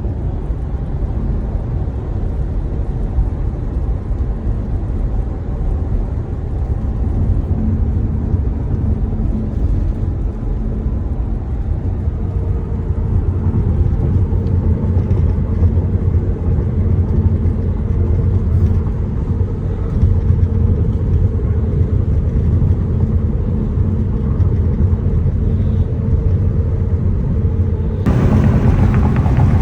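Tesla electric car driving at a steady speed, with no engine sound: a steady low road and tyre rumble and a faint hum. About 28 seconds in, a louder rushing hiss suddenly joins in.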